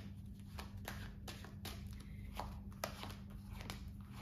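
A deck of tarot cards being shuffled in the hands: a run of soft, quick card slaps, about three a second, over a faint steady hum.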